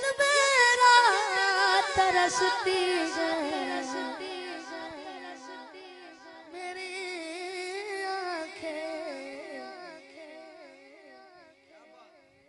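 A boy singing a naat unaccompanied into a microphone, drawing out long wavering, ornamented notes. His voice swells again midway, then fades away toward the end.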